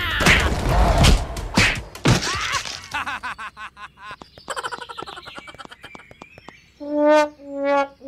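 Edited-in cartoon sound effects: a few loud crashing hits in the first two seconds, then a stretch of rapid clicking, then two short brass horn blasts near the end.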